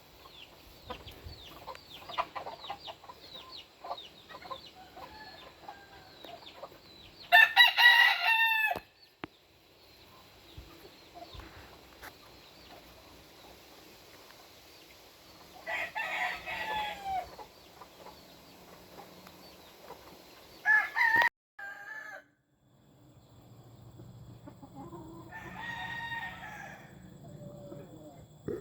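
Game roosters crowing several times, each crow about a second long, with hens clucking and chirping between the crows.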